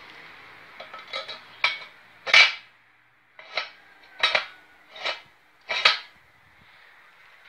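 Welded steel bracket clanking against the steel rails of a base frame as it is set down and slid along them. There are about eight metallic knocks, each with a short ring; the last four come at an even pace, a little under one a second.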